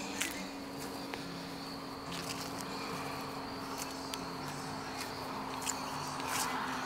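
Insects chirping steadily over a low steady hum, with scattered light clicks and the rustle of footsteps through grass and fallen leaves, the rustling growing in the second half.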